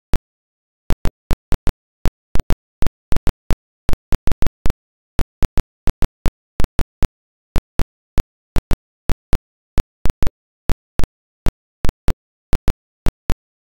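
Sharp, irregular clicks, roughly three a second, over otherwise dead silence.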